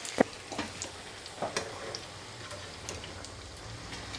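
Batter-coated sponge gourd pakodas deep-frying in hot oil in a steel pan: steady sizzling with scattered crackles and pops. The loudest sound is a sharp click just after the start.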